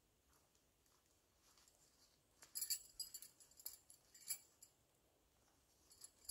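Faint clinks and crackles of small camp gear or packaging being handled, in a short cluster about halfway through, against near silence.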